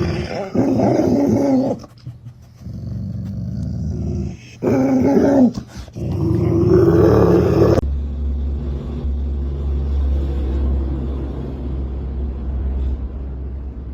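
A dog growling and grumbling in several drawn-out bouts with short pauses between them. About eight seconds in it gives way abruptly to a steady low rumble.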